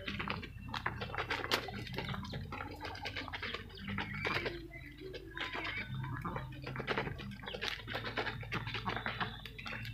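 A flock of domestic ducks feeding on grain, their bills dabbling and clicking rapidly against the feeder tray and the dirt in a constant patter, with a few short calls mixed in.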